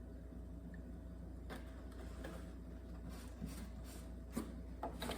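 Faint scattered clicks and light knocks of kitchen items being handled, a few slightly louder near the end, over a low steady hum.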